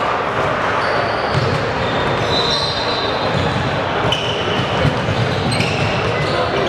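Basketball game on a hardwood gym court: sneakers squeak in short high chirps several times over a steady hall murmur, with the ball bouncing.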